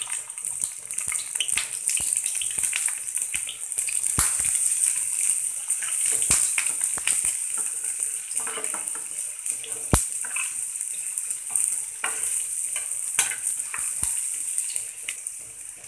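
Sliced onions sizzling and crackling in hot mustard oil in a non-stick frying pan. A metal spatula knocks against the pan now and then as they are stirred.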